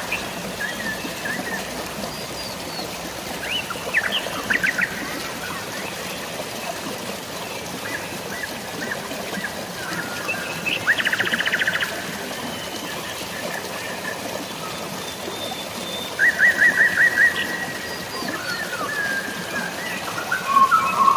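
Birds singing in bursts of rapid trilling notes, three times, with scattered chirps between, over a steady hiss of drizzling rain and falling water.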